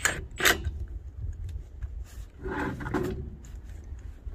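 Short metallic clacks and a scraping rattle from working on a truck wheel's lug nuts with a cordless impact wrench: two sharp clacks near the start, then a scrape and rattle a little past halfway, over a steady low rumble.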